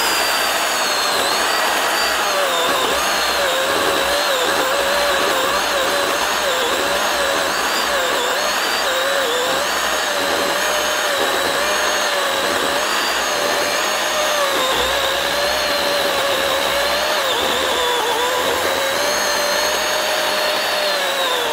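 DeWalt FlexVolt battery chainsaw with a ripping chain running under load as it cuts through a hardwood log. Its electric motor whine dips and recovers repeatedly as the chain bites.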